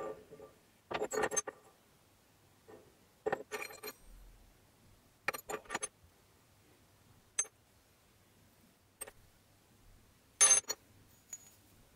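Small machined steel parts clinking and knocking as they are handled, picked up and set down on a steel table top. A handful of short metallic clinks come one at a time or in quick little clusters with quiet in between, the loudest near the end.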